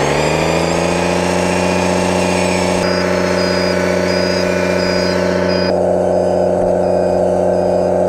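A 1/14-scale Stahl/Liebherr 742 RC hydraulic bulldozer running with a steady, engine-like drone of several tones. It rises slightly in pitch at first, then holds, with a faint high beep repeating about twice a second.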